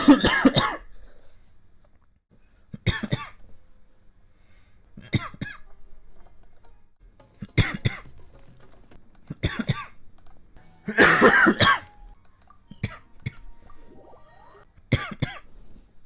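A person coughing repeatedly: short single coughs about every two seconds, with one longer, louder coughing fit about eleven seconds in.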